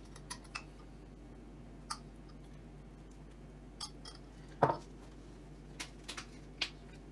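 A few scattered light clinks and knocks of a spoon against a jar and a ceramic plate as horseradish sauce is spooned onto a flatbread, with the loudest knock about two-thirds of the way through.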